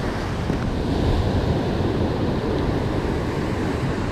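Ocean surf breaking and washing over a lava-rock shoreline, a steady rushing noise, with wind buffeting the microphone.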